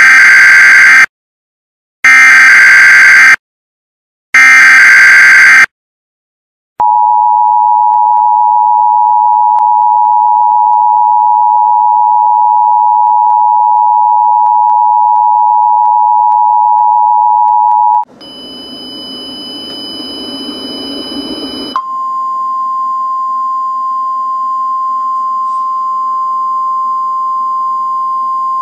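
Emergency Alert System warning tones. Three short bursts of screechy digital data tones (the SAME header) come first. A steady two-tone attention signal follows and is held for about eleven seconds. After a few seconds of hiss, a single steady tone (the NOAA Weather Radio warning alarm tone) sounds from about 21 seconds in.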